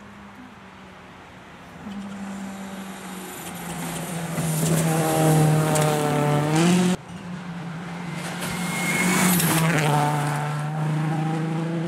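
Rally cars passing at speed in back-to-back clips: turbocharged four-cylinder Citroën C4 WRC engines climb in pitch and swell as a car slides past, then cut off abruptly about seven seconds in. A Mitsubishi Lancer WRC follows, its engine rising again under acceleration as it pulls away.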